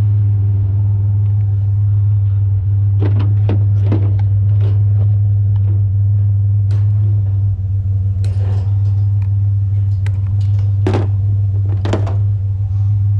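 Truck driving, heard from inside the cab: a steady low engine and road drone, with scattered knocks and rattles, a cluster a few seconds in and two sharper ones near the end.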